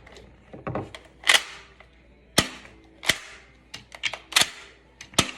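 Toy pistol being fired repeatedly in mock play, giving about eight sharp snapping cracks at uneven intervals.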